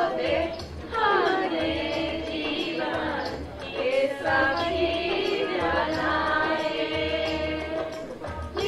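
Small choir of women singing an Indian patriotic song together, in phrases with long held notes.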